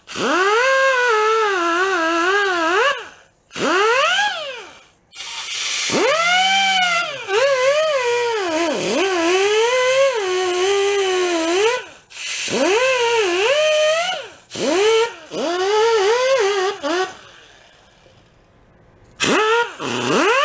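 Small air-powered grinder with an abrasive wheel whining in several runs, its pitch dipping and recovering as the wheel is pressed against the steel crankshaft output shaft of a small engine to grind off high spots. It stops for a couple of seconds near the end, then starts again.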